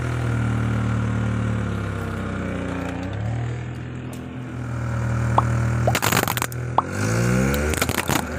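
Car engine running, its pitch rising and falling as it revs. About six seconds in, and again near the end, come clusters of sharp cracks and crunches as the tyre rolls over hollow plastic toy balls.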